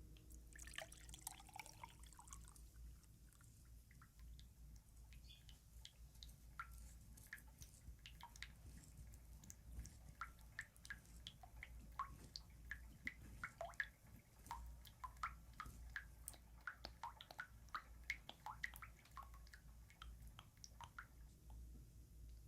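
Quiet water dripping: many small, irregular drops, some landing with a short pitched plink.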